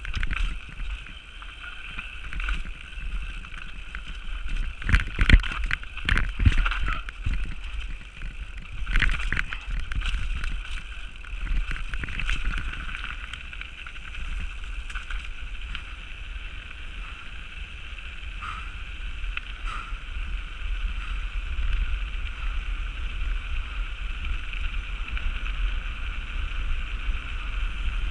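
Mountain bike descending: a steady rush of wind and tyre noise, with bursts of rattling knocks as the bike goes over rough ground, about five to seven seconds in and again around nine seconds. After that it settles to a smoother, steadier run on a paved surface.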